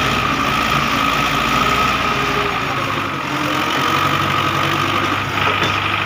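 Belarus 510 tractor's diesel engine running at a steady speed.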